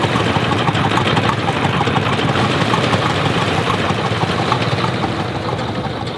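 Fishing-boat engine running steadily with a fast, even clatter, easing slightly near the end.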